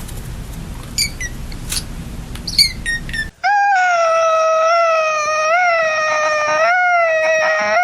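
A few short high chirps over a steady rushing noise. About three seconds in, this gives way to a cat's single long yowl, held at a steady pitch for about five seconds with small wavers.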